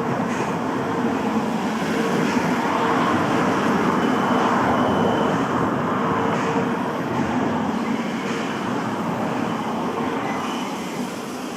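Steam-hauled passenger train behind locomotive C11 123 rolling past. Its noise builds to a peak about halfway through and then fades.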